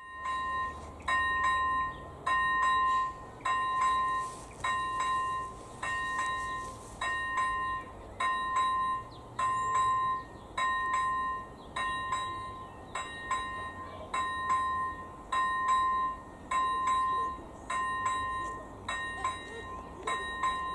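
Electronic ZV-01 level-crossing warning bell ringing in even, regular strokes a little under once a second, each a bright ding that rings on briefly. The crossing is activated, warning that a train is approaching.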